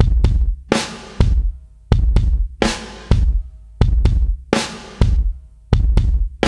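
Background music with a heavy drum-kit beat: deep bass-drum kicks, with a sharp snare hit about every two seconds.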